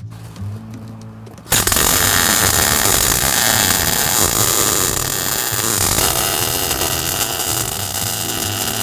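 MIG welder arc crackling and hissing steadily as steel gussets are welded onto a Dana 44 front axle housing, starting suddenly about a second and a half in, with background music underneath.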